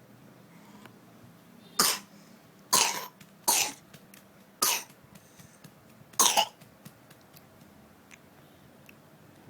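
Five short, harsh coughs, about a second apart.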